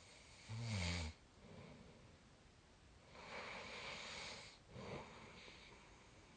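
A sleeping person snoring. A short low-pitched snore comes about half a second in, then a long breathy exhale, and a brief snort near five seconds.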